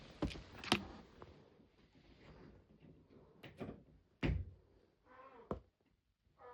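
Knocks and clicks of tools and fittings being handled during electrical work, with one heavier thump a little past four seconds in.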